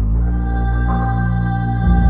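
Background music with sustained chords over a steady bass, without singing.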